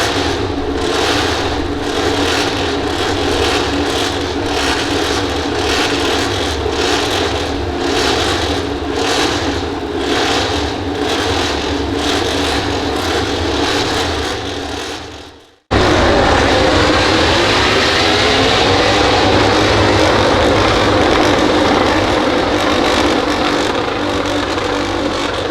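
MotoGP racing motorcycle engines running loud on the circuit, a dense continuous din. The sound cuts out for an instant about fifteen seconds in, then resumes with engine notes rising and falling as bikes rev and pass.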